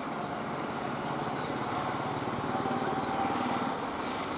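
An engine running steadily, its low pulsing a little louder in the middle, with short high chirps now and then above it.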